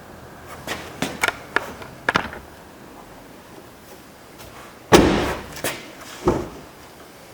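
Car door latch mechanism being worked through the new outside door handle: several light clicks, then a loud clunk about five seconds in and two softer clunks after it.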